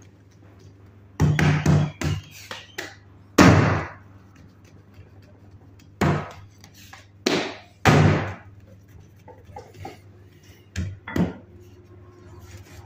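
Palms slapping and pressing a large round of flatbread dough on a wooden board: irregular soft thuds, several close together in the first few seconds and the loudest about three and a half seconds in, then single slaps every second or two. A faint steady low hum runs underneath.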